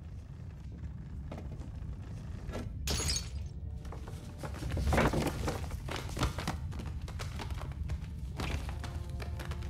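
Film sound effects of a deep rumble shaking a room, the rumble of an approaching stampede, with books and objects rattling and things crashing and breaking, the loudest crash about five seconds in. Orchestral film music plays underneath.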